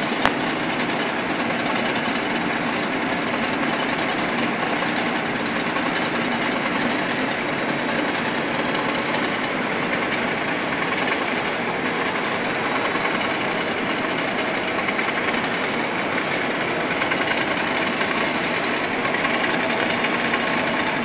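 KALPVRUX SLR 07 surface slitter-rewinder running at speed, winding 28-micron LD film: a steady, dense machine whir from the rollers and the moving film. A single click sounds just after the start.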